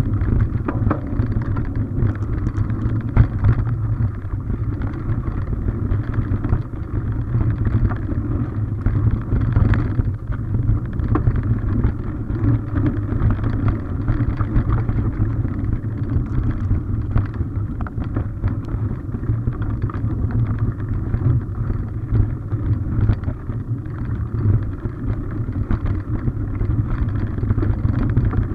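Mountain bike riding a dirt forest singletrack, heard through a camera carried on the bike: a steady low noise of the tyres on the trail and the shaking camera, with many scattered sharp knocks and rattles from the bumps.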